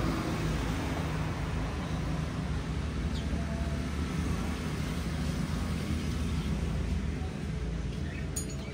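Steady low background rumble, with a faint click near the end.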